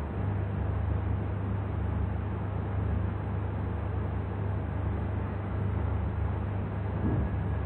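Steady low hum under a constant hiss of background noise, with no distinct events.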